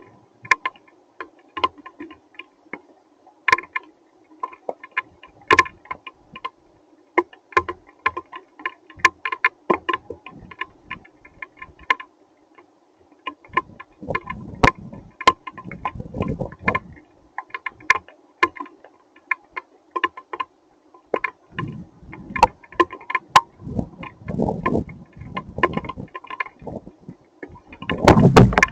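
Hailstones striking hard surfaces near the microphone: a dense, irregular patter of sharp ticks and clicks, with low rumbles about halfway through and again near the end.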